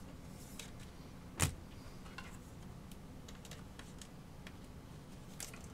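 Faint scattered clicks and taps of trading cards being handled and sorted, with one sharper tap about a second and a half in.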